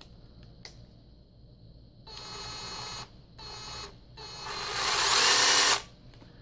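Makita 18-volt cordless drill's motor run in three trigger pulls after a click: a short run, a brief one, then a longer run that climbs in speed and loudness before cutting off. The newly fitted trigger switch is giving smooth speed control.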